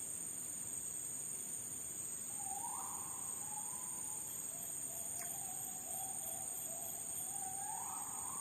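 Forest swamp ambience: a steady high-pitched insect drone, with a bird calling from about two seconds in, a string of mid-pitched notes that each swoop up at the start and then hold.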